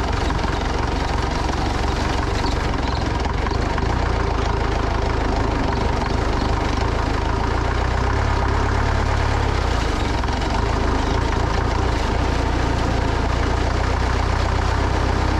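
A vehicle engine running steadily with a deep, even hum and constant noise over it.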